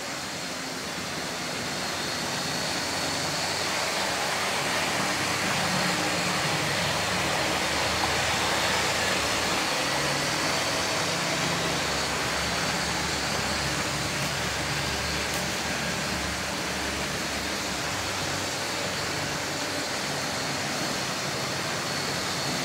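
OO gauge model train, a diesel locomotive hauling tank wagons, running along the track: the locomotive's motor hums and the wheels rattle on the rails, with a steady high-pitched whine. The sound builds over the first several seconds as the train comes by, then eases slightly.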